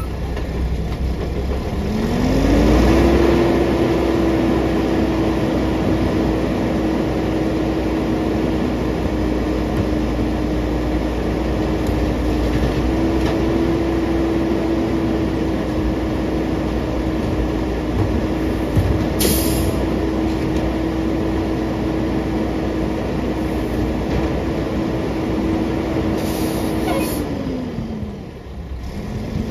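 Old side-loading garbage truck's diesel engine revving up a couple of seconds in and holding a high, steady speed to power the hydraulic cart tipper and packer, then dropping back to idle near the end. A single sharp bang comes about two-thirds of the way through.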